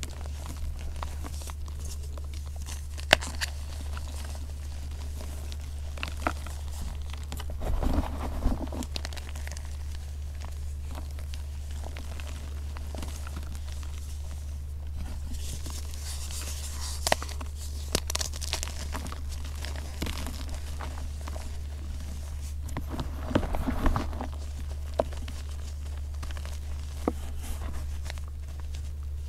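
Reformed gym chalk blocks being crushed and crumbled by hand in a bucket: crunching, crackling and powdery crumbling with scattered sharp snaps, over a steady low hum.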